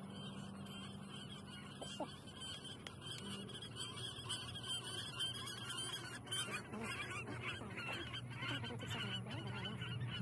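A large flock of geese honking, the calls growing denser and louder from about four seconds in, over a steady low hum.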